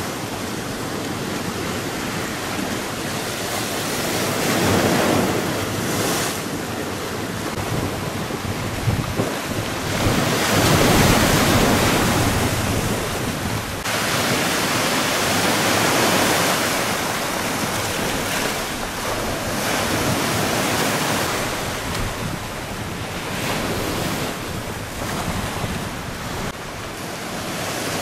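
Storm-driven sea waves crashing and surging onto the shore in a strong gale, the wash swelling louder every few seconds, with wind buffeting the microphone.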